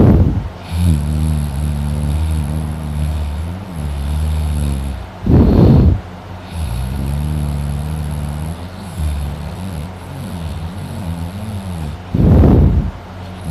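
A man snoring loudly in deep sleep: long, low, wavering snores of four to five seconds, each broken by a short, louder burst of breath, about every six to seven seconds.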